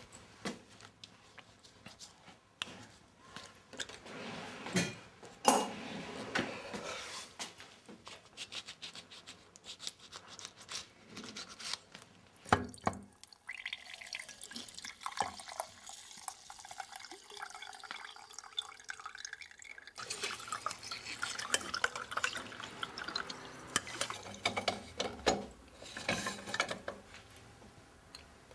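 Fresh orange juice being made and poured into a drinking glass: dripping liquid and glass and dish clinks. About halfway through, a steady pour runs for several seconds.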